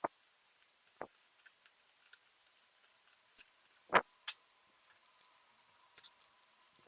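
Lenovo ThinkPad T420 laptop parts being handled during disassembly: scattered small clicks and knocks of plastic and metal, about six in all, the loudest about four seconds in.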